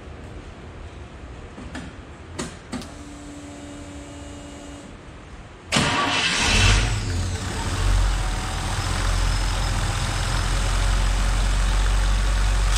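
A few clicks and a short faint hum, then about six seconds in a fuel-injected International Harvester V8 starts quickly and settles into a steady idle held by its idle air control.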